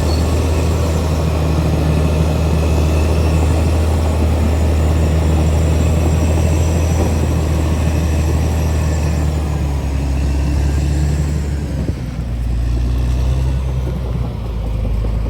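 Caterpillar D6R XL bulldozer's diesel engine running steadily, with a faint high whine over it. About twelve seconds in, the engine note dips and settles lower.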